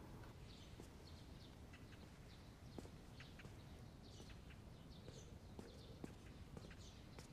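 Near silence, with faint birds chirping in the background and a couple of soft knocks.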